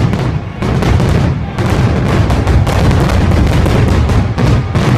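Aerial firework shells bursting in quick, overlapping succession: loud booms and crackle following one another with hardly a gap.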